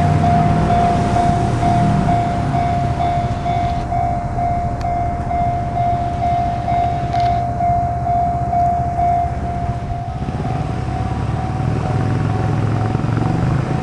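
Japanese railway level-crossing alarm ringing in a steady, rapidly repeated tone, signalling an approaching train, over the low rumble of traffic and the oncoming train. The alarm grows fainter about ten seconds in.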